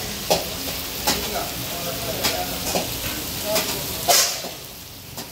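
Mutton and tomatoes sizzling in hot oil in a karahi, with a metal ladle stirring and scraping the pan in about seven sharp strokes, the loudest a little past four seconds in. The sound gets quieter near the end.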